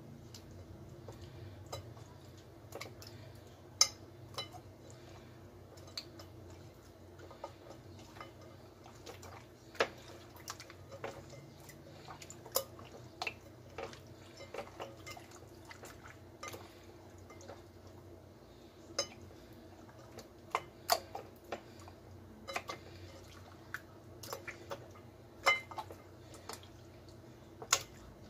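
Bare hands kneading pork chops in a soy-sauce marinade in a bowl: faint wet squelches with scattered sharp clicks and taps, over a low steady hum.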